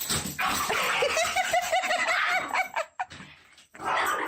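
A person laughing in a quick run of repeated 'ha' pulses that lasts about two and a half seconds, then a short breathy burst of laughter near the end.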